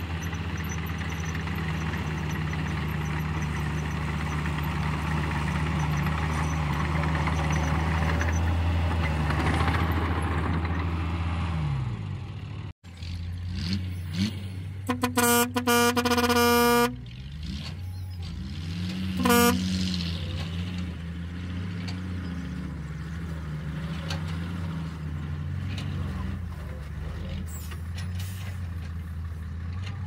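A small bulldozer's engine runs steadily under load as it pushes dirt, building slightly in level, then cuts off abruptly. A dump truck's engine follows, and its horn gives a quick series of short toots, then one more toot a couple of seconds later, over the running engine.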